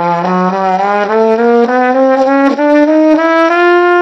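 Trumpet playing a chromatic scale upward in eighth notes from low G to middle G, about a dozen half-steps climbing evenly, then holding the middle G as a long note from about three and a half seconds in.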